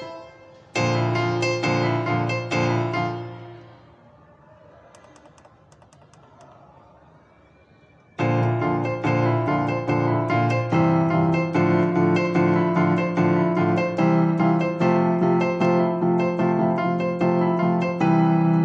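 Yamaha electronic keyboard on a piano voice, playing a left-hand chord exercise of repeated block chords in a steady rhythm. The playing stops about three seconds in and rings away. It starts again about eight seconds in and runs on, with a lower bass note joining a few seconds later.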